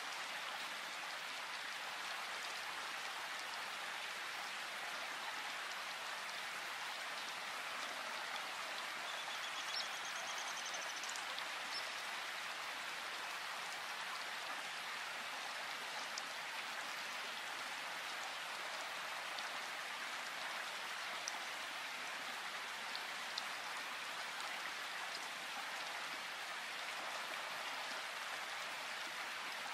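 Steady rain falling in a forest, an even hiss of many drops with a few louder single drips now and then. A faint high chirp sounds briefly about ten seconds in.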